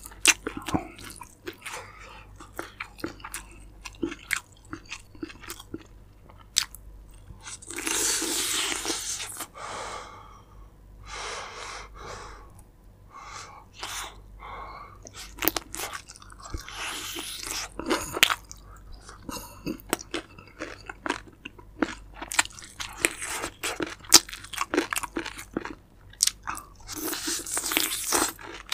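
Close-up eating sounds of a crispy fried chicken leg being bitten and chewed: many crisp crunches and wet mouth clicks, with a few louder noisy stretches lasting a second or two.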